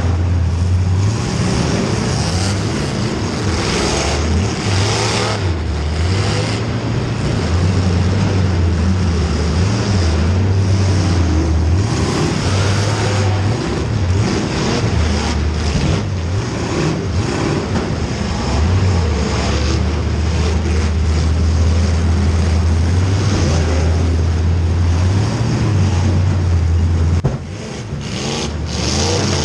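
Race car engines running on track, a loud steady drone whose pitch rises and falls as the cars go round. The sound dips briefly near the end.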